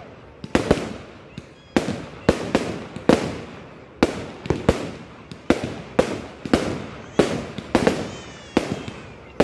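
Fireworks display: a rapid, irregular string of sharp bangs, roughly two a second, each followed by a short echoing tail.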